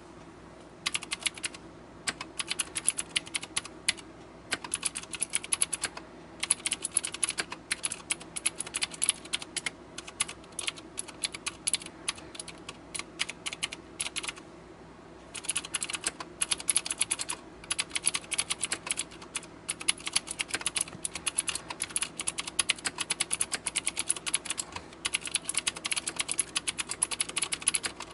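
Fast typing on a Xenics Stormchaser mechanical keyboard with Cherry MX Blue clicky switches: dense runs of sharp key clicks with brief pauses, the longest about a second long near the middle.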